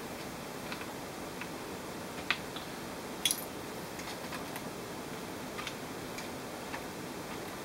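Scattered light clicks and taps from hands handling the plastic case and motherboard of an HP G60 laptop during disassembly, with a sharper click a little over three seconds in, over a steady background hiss.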